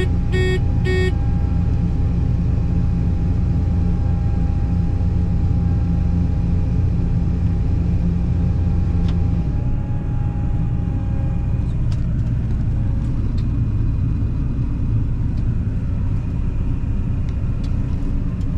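Combine harvester running steadily while cutting soybeans, a loud low rumble with a steady machine whine. Two short electronic beeps come in the first second. About half way through, the low hum drops away and the whine changes pitch.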